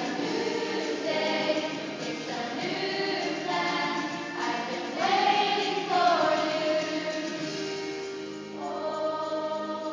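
A choir singing, several voices together on long held notes that change every second or so.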